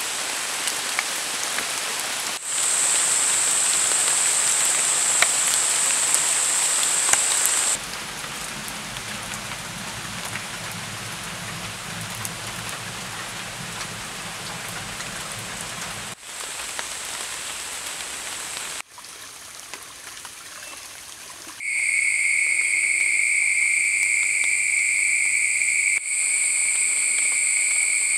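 Steady rain falling in rainforest, with a continuous high insect whine over it from a few seconds in. Midway the hiss gives way to the low rumble of a wood fire burning. Near the end, loud steady high-pitched insect calls over quieter rain.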